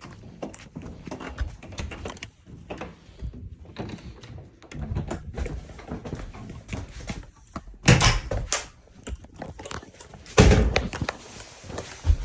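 Scattered knocks and rustling, with two loud thumps about eight and ten and a half seconds in.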